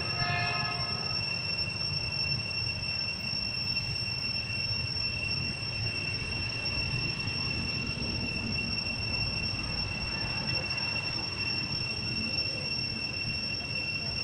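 Steady, high-pitched insect drone held on two pitches, over a low rumble. A short squeaky call sounds right at the start.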